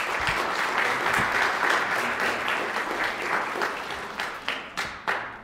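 Audience applauding: dense clapping that thins out toward the end into a few scattered claps and stops.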